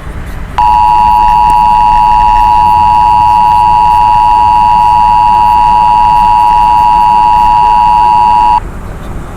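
Emergency Alert System attention signal: the loud two-tone 853/960 Hz alarm tone sounding steadily for about eight seconds. It starts under a second in and cuts off sharply near the end.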